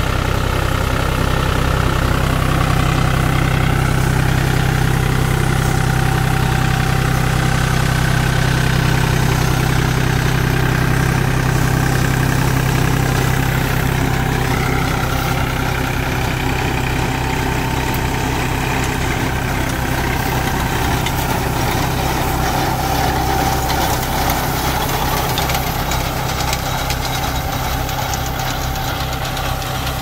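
Tractor's diesel engine running steadily, with a deep, even hum.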